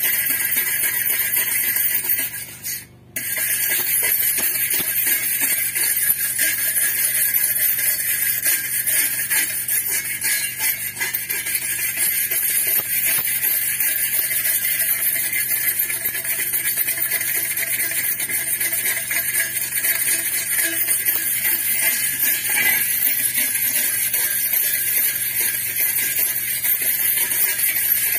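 Hand wire brush scrubbing rust off a steel square tube: a continuous scratchy metallic rasp, broken briefly about three seconds in.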